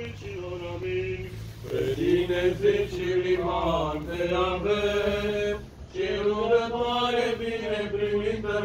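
Eastern Orthodox memorial-service chant: voices singing long held notes, with a short break about six seconds in.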